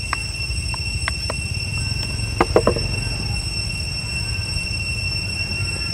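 Sharp clicks and a brief cluster of crackles about two and a half seconds in, from a plastic water bottle a young long-tailed macaque is handling. Under them runs a steady high-pitched whine and a low rumble.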